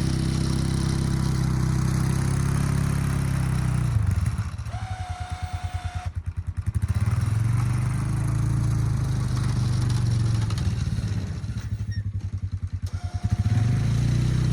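Quad (ATV) engine running steadily. It twice drops to a slow, lumpy idle, about four seconds in and again near the end, and picks back up each time as the throttle is opened.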